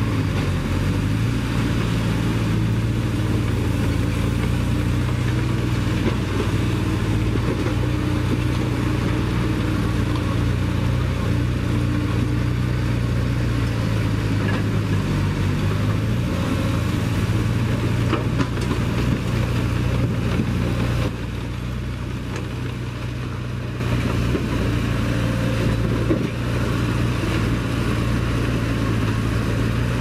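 Diesel engines of a Mitsubishi crawler dozer and a JCB JS200 excavator running steadily under work, a continuous low engine drone whose pitch shifts now and then. It drops in level for a few seconds a little past twenty seconds in.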